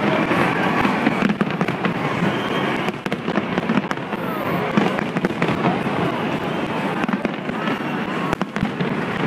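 Massed aerial fireworks shells bursting in quick succession: a dense, continuous crackle of many small bangs with sharper reports scattered through it, and crowd voices underneath.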